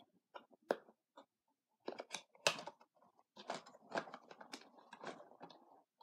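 A small cardboard box with a fidget cube inside being opened by hand. There are a few scattered clicks and scrapes at first, then from about two seconds in a busy run of crinkling, scraping and small ticks as the packaging is pulled apart.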